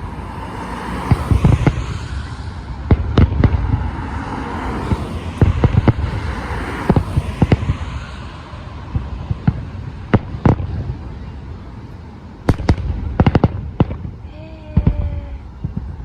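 Aerial fireworks bursting overhead: a string of sharp, irregular booms, some in quick clusters, with a dense noisy layer between the bangs over the first half.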